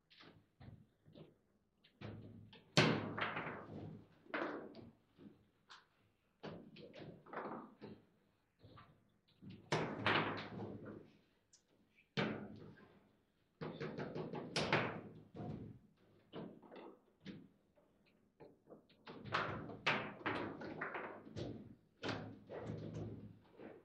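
Table football in play: irregular sharp knocks and clacks of the ball struck by the rod-mounted players and the rods being jerked and spun, coming in quick clusters with short pauses between.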